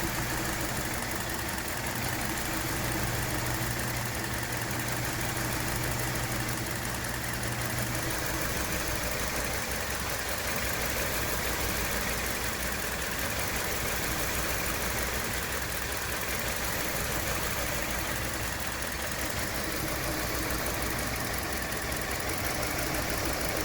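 2017 Hyundai Elantra's four-cylinder engine idling with a misfire, the idle running rough and uneven. A new number 2 ignition coil and a computer update have not cured the misfire.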